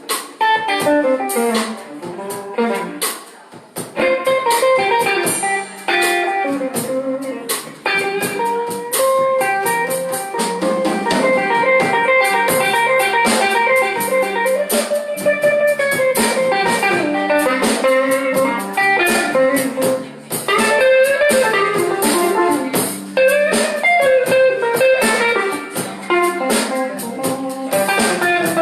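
Live blues band playing an instrumental passage: an electric guitar lead over bass and drums.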